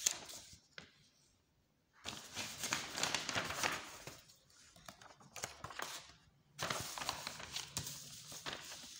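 Paper rustling and crinkling as book pages are handled and turned, in two stretches of crisp rustle with a dead silent gap about a second in.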